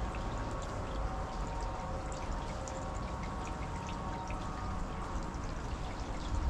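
Car driving on a wet road: a steady low rumble under a wet hiss from the tyres, with scattered light ticks of drops hitting the glass.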